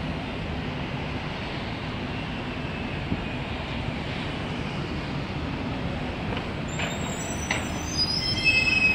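City bus driving past in street traffic: a steady engine hum over road noise, with a high-pitched squeal near the end.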